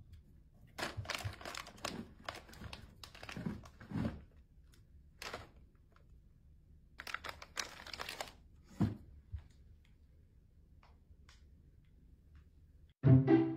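Short, irregular rustling and crinkling noises with quiet gaps between them; music comes in near the end.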